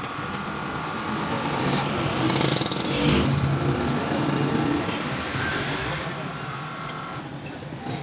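Background traffic noise with people talking.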